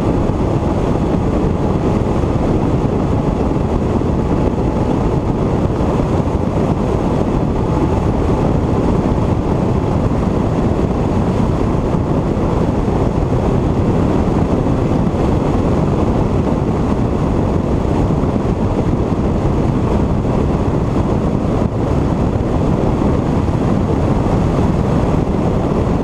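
Bass boat running fast across open water: a steady, loud rush of wind on the microphone mixed with the boat's motor and hull on the water.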